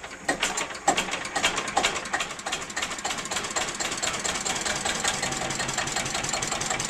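Listeroid 6/1 single-cylinder diesel engine coming to life after hand-cranking: its fuel injector clicking as the heavy flywheels turn, then the engine catching and settling into an even knock of about five beats a second.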